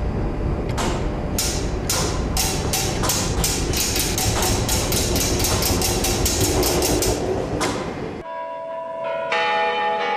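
Large tower-clock mechanism clanking, its strokes quickening to about five a second. After about eight seconds the clanking stops and a bell rings on with a steady tone; it is struck again about a second later.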